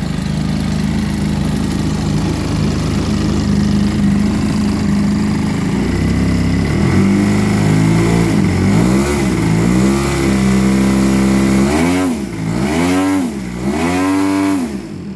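3W 110CS twin-cylinder two-stroke petrol engine of a 104-inch RC aerobatic plane, driving a 26x10 three-blade propeller on a ground test run. It idles steadily, then from about six seconds in is throttled up and down in a series of quick revs.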